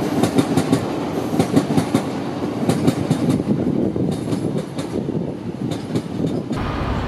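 Passenger train passing by on a raised track, its wheels clacking over the rail joints above a steady rumble. The sound cuts off suddenly near the end.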